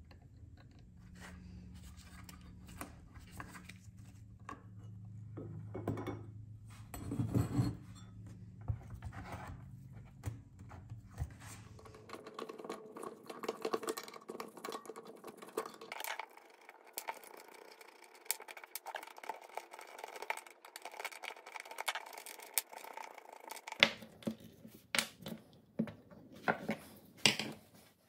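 Small metal parts and hand tools clicking, clinking and scraping while an antique electric fire-alarm bell's electromagnet coil assembly is dismantled by hand and its screws and nuts are set down. The sharpest clicks come near the end.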